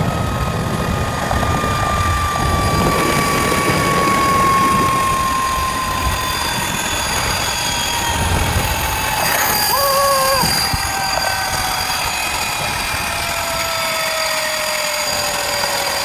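Zip-line trolley wheels running down the steel cable, giving a steady whine that falls slowly in pitch as the rider slows toward the landing, over a low rush of wind on the microphone.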